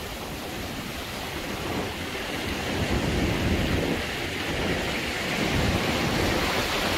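Ocean surf washing around the wader's legs in shallow water, with wind rumbling on the microphone, swelling louder toward the end.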